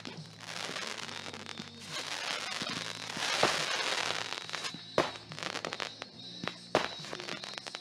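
Consumer aerial mortar shells bursting: dense crackling peaking about three and a half seconds in, then sharp booming reports near five and seven seconds in.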